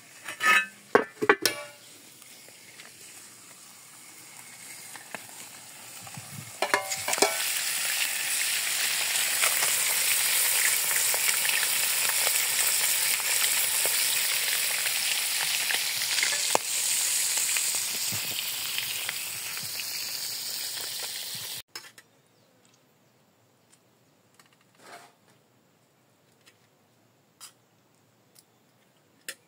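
Pieces of fish frying in a heavy iron pan. A few metal clinks and a faint sizzle come first, then a loud, dense sizzle starts about seven seconds in. It cuts off suddenly about two-thirds of the way through, leaving near quiet with a few faint ticks.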